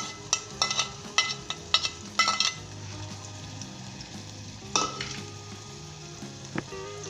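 Chopped onion and ginger-garlic paste frying in vegetable ghee in a pot, with a spoon stirring and clinking against the pot's side. There is a quick run of sharp, ringing clinks in the first two and a half seconds and one more a little before five seconds, over a steady sizzle.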